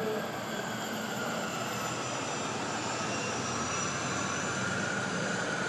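Steady rumble of passing vehicles with faint whining tones, building slightly near the end.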